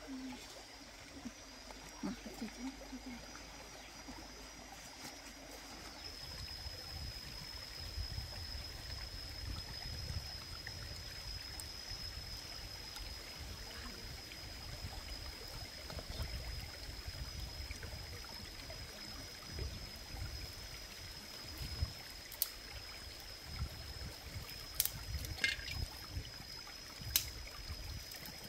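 Outdoor forest ambience of running stream water with a steady high whine. Near the end come a few sharp snaps and clicks as dry sticks are handled.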